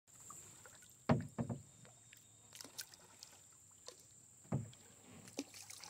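Canoe paddling: a double-bladed paddle dipping and splashing lightly in calm water. There are a few low knocks of the paddle against the canoe, two close together about a second in and one more about four and a half seconds in.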